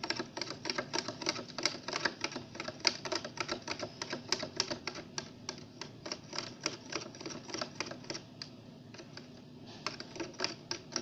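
Green glue slime being stirred in a clear plastic box with a stick, just after mouthwash was added as activator: quick clicking and tapping of the stick and slime against the plastic, several clicks a second, thinning out after the middle and picking up again near the end.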